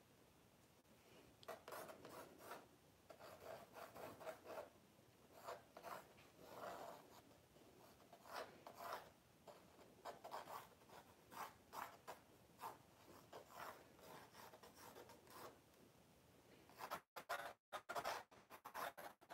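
Faint, irregular scratching and rubbing strokes of a drawing tool being dragged across a blank canvas as the layout of a painting is sketched in. Near the end the sound cuts out briefly several times.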